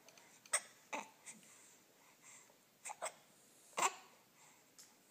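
Baby hiccuping: several short, sharp hiccups a second or so apart, two of them in a quick pair near the middle. The uploader puts the hiccups down to the baby eating too fast.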